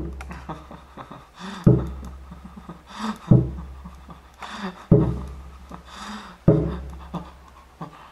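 Five sharp popping sounds made with the mouth, a finger hooked inside it, coming about every second and a half, each with a short fading tail.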